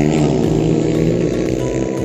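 Racing motorcycle engine revving hard, its pitch dipping and then climbing again.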